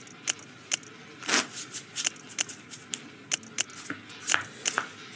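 Casino-chip click sound effects from an online live blackjack game as bets are placed on the betting spots, about a dozen short, sharp clicks at irregular intervals.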